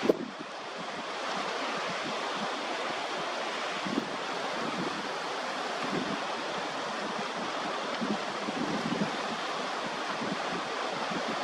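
Strong wind blowing across the microphone, with gusts buffeting it now and then, over a steady rush of wind-whipped, whitecapped sea.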